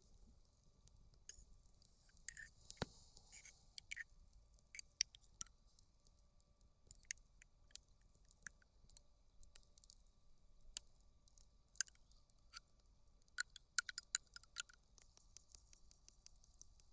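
Campfire crackling: irregular sharp pops and snaps over a faint hiss, with a flurry of closely spaced pops about 13 to 15 seconds in.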